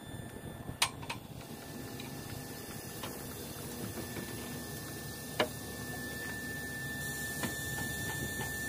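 Tow chains clinking against steel as they are handled at the front of a semi truck. A handful of sharp single clanks come a second or more apart, over a low rumble. A steady high-pitched tone comes in about a second and a half in.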